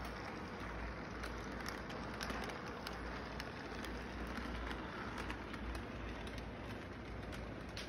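Electric model train rolling on its track: a steady rumble with many faint, scattered clicks.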